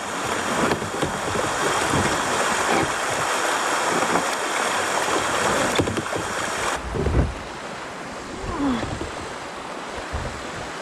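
Rushing water of a shallow, rocky river riffle around kayaks, with the splashes of paddle strokes. About seven seconds in, the hiss drops and the water sounds softer and duller.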